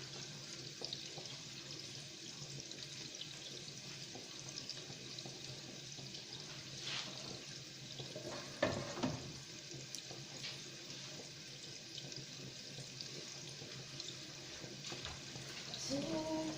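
Chopped garlic and onion sizzling steadily in hot oil in a pan, with a few sharp knocks, the loudest about two-thirds of the way through.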